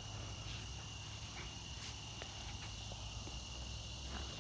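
Steady insect chorus, a constant high-pitched drone with no break, with a few faint ticks over it.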